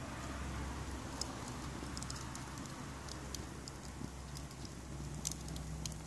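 Kiln-dried kindling burning in a metal ice-bucket fire pit, crackling with irregular sharp pops, the loudest about five seconds in. A low steady hum runs underneath.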